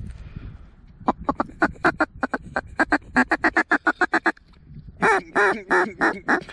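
Mallard duck call blown in a fast run of short quacks for about three seconds, then a few longer quacks with a wavering pitch near the end, calling to a flock of mallards overhead.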